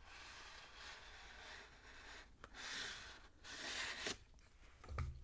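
Scraping and rustling as a teeth whitening pen and its packaging are handled, coming in several swells, with a sharp click about four seconds in and a low thump near the end.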